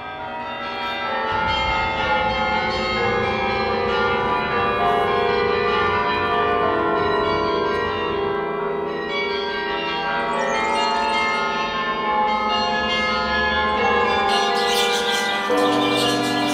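Bells ringing, many overlapping tones sounding together and lingering.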